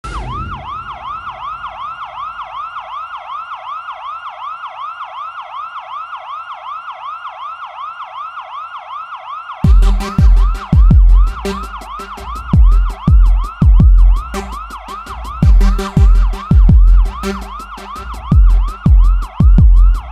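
A siren in a fast yelp, about four sweeps a second. About halfway through, a music beat with heavy bass drum hits comes in under it.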